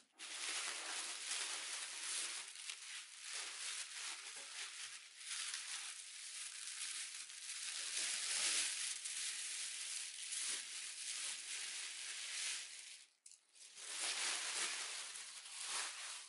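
Honeycomb kraft-paper packing and thin white wrapping crinkling and rustling as hands pull it apart to unwrap items, with a brief pause about thirteen seconds in.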